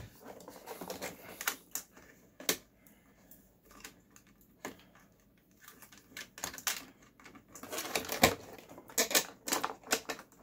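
Plastic clicks and rustling of wrapping as a plastic gaming headset is handled and unwrapped: scattered sharp clicks with light crinkling, coming more often near the end.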